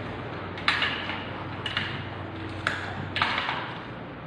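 Metal parts of an M16A1 rifle clicking and knocking as the upper and lower receiver groups are fitted together: four sharp clicks, roughly a second apart.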